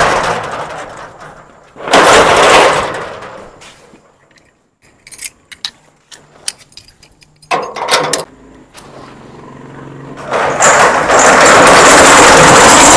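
Steel roller shutters of a shop front being pulled down, a loud metallic rattle that fades out near the start and comes back briefly about two seconds in. After a quieter stretch of light clicks and taps, a shutter rattles down again from about ten and a half seconds.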